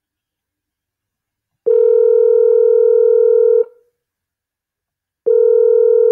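Telephone ringback tone on an outgoing TextNow web call, the signal that the called phone is ringing: a steady tone lasting about two seconds beginning a couple of seconds in, then after a short pause a second ring tone near the end.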